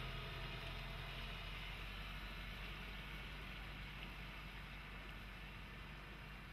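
Water rushing and splashing around the tyres of an Isuzu D-Max pickup as it wades slowly through a shallow crossing, its 1.9 common-rail diesel engine running low and steady underneath. The sound slowly fades.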